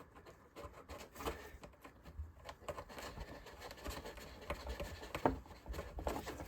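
Spatula stirring thick plastisol ink in its container: faint, irregular scraping and soft ticks, with one sharper click about five seconds in.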